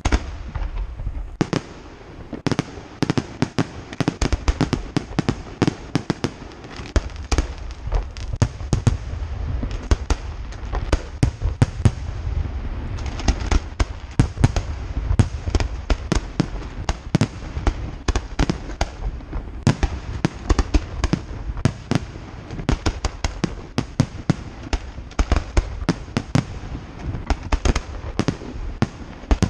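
Aerial fireworks going off in a rapid, continuous volley of sharp bangs, several a second, over a low rumble. The volley starts abruptly at the opening with a loud report.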